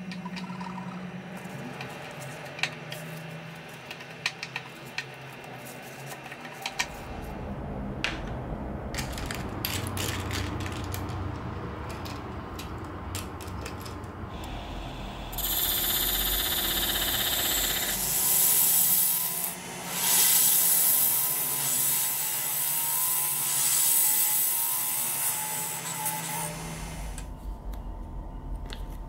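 Metal turning tool scraping a small wooden disc spinning in a wood lathe's chuck: a loud, steady hiss for about ten seconds in the middle, over the low hum of the lathe. Light clicks and taps come in the first few seconds.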